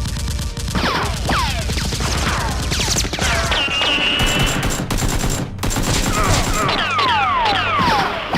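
Rapid, continuous machine-gun fire, the dubbed gunshot sound effects of a Nerf battle scene, with many quick falling whistles laced through it.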